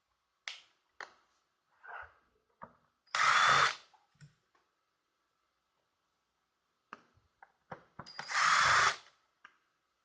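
Electric screwdriver spinning out screws from the instrument cluster in two bursts of about a second each, with scattered short clicks and taps between.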